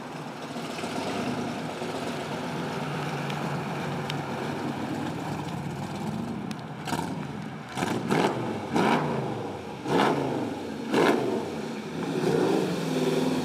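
1967 Ford Mustang V8 running with a steady rumble, then revved in a series of quick throttle blips, each rising and falling, about halfway through. There is one more swell of revs near the end.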